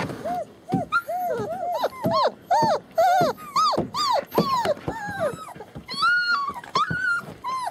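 Young German Shepherd puppies, about three weeks old, whining and squealing. A rapid run of short high cries rises and falls in pitch, with a few longer drawn-out cries near the end.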